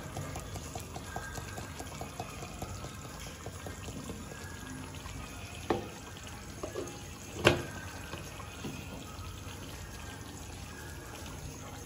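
Thick spinach purée bubbling and popping in an iron kadai, with a quick run of small pops in the first two seconds. A metal spatula knocks against the pan twice, the louder knock about seven and a half seconds in.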